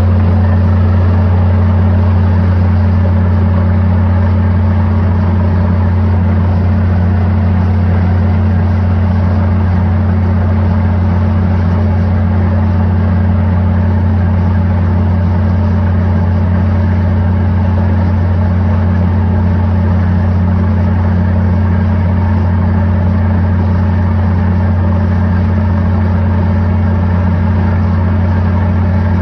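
Borewell drilling rig running steadily, a loud constant low engine drone that does not change.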